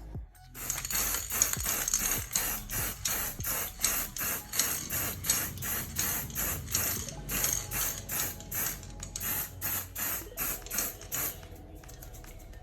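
Background music with a steady beat of short hissy, shaker-like pulses about three a second over a faint low hum; no fan noise stands out.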